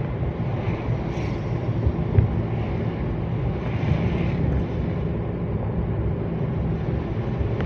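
Steady low rumble of a van's engine and tyres on the road, heard from inside while driving, with wind on the microphone and a few soft swells of hiss from the road and passing traffic.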